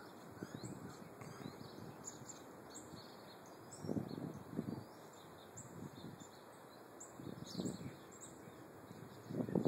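Small birds chirping, many short high chirps scattered throughout, with a few brief low rumbles on the microphone about four seconds in and again near the end.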